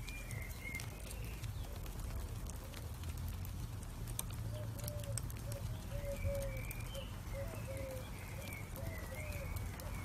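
Fire crackling with scattered sharp snaps over a low steady rumble. A bird calls in the background, a run of short, low, repeated notes through the second half, with higher wavering calls above them.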